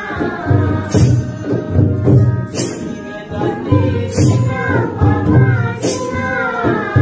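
Devotional group singing, a chant-like melody carried over a steady drum beat, with a bright cymbal strike about every one and a half seconds.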